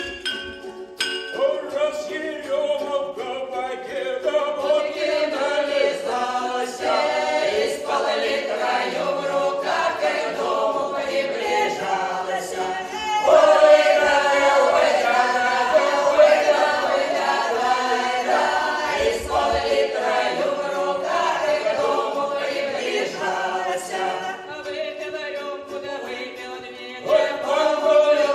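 Folk ensemble of mostly women's voices with a couple of men singing a comic Belgorod-region village song in group harmony. The singing gets louder about halfway through, dips briefly near the end, then swells again.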